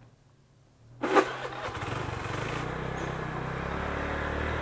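A small engine starts with a sudden loud burst about a second in, then runs steadily with an even, low hum.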